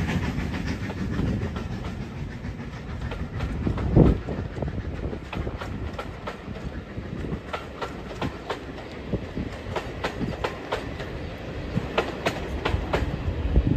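Passenger coaches of a steam-hauled train rolling past, their wheels clicking over the rail joints. The sound falls away over the first couple of seconds as the locomotive moves off, and there is one heavy knock about four seconds in.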